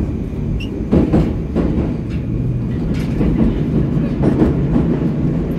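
Metro train running through a tunnel, heard from inside the passenger car: a steady low rumble with several short clicks from the wheels.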